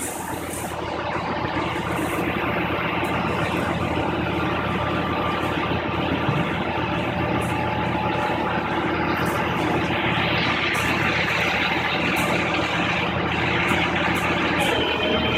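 Heavy vehicle engine idling steadily, with a brief hiss about two-thirds of the way through.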